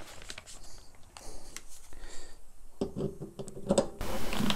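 Scattered light clicks and scrapes of a cordless impact driver being handled and set onto a screw on a lawn mower deck, with a louder noise building in the last half second.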